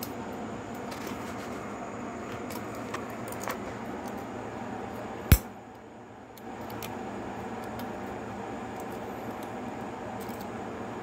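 Small metallic clicks and taps of hand tools working at the valve adjuster in the open tappet inspection port of a Suzuki DR-Z125 cylinder head, with one loud sharp click about five seconds in, over a steady background hiss.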